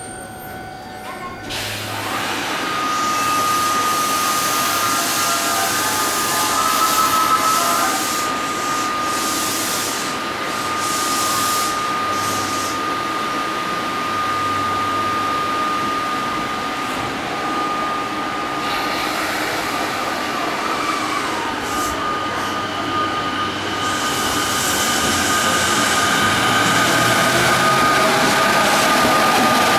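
JR East 209 series electric commuter train standing at the platform with a steady high whine, then pulling away about two-thirds of the way through, its motors whining in rising tones and growing louder as it picks up speed.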